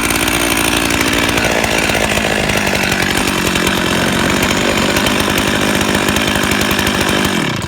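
Husqvarna 50 two-stroke chainsaw running loudly and steadily, cutting off suddenly near the end. It is running well and ready for sale.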